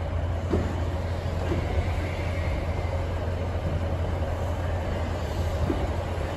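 A Northern Class 156 two-car diesel multiple unit running as it draws slowly along the platform, giving a steady low diesel rumble with a constant hum above it. A few light clicks sound at intervals.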